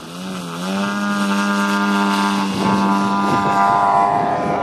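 Engine of a radio-controlled model tow plane running at full throttle on an aerotow launch: a steady engine drone that slides up slightly in pitch and swells in loudness over the first second, then holds loud.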